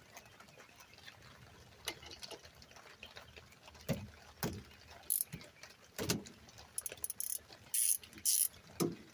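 A ratchet and socket working a 14 mm rear brake caliper bolt loose on a Hyundai Tucson. Scattered metallic clicks and knocks come first, then a quick run of ratchet clicks near the end.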